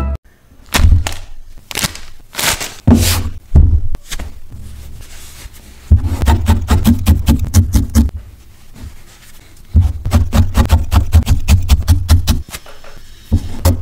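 Felting needle stabbing rapidly and repeatedly into wool roving on a foam pad, in two runs of quick soft thuds from about six seconds in and again from about ten seconds in. Before that, the wool is handled and rolled, with scattered taps and rustles.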